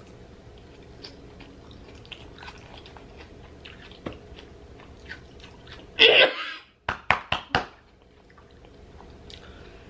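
A person chewing a mouthful of food, with faint wet mouth clicks. About six seconds in there is a sudden loud breathy burst, followed quickly by four or five sharp clicks.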